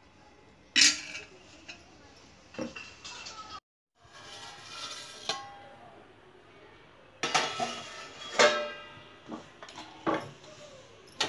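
Metal spoon clinking and scraping against an aluminium cooking pot while stirring curry: several sharp clinks, with stretches of scraping between them.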